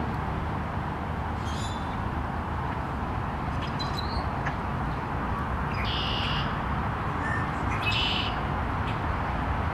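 Rusty blackbird giving short, high-pitched notes several times, the clearest about six seconds in and again about eight seconds in, over a steady low background rumble.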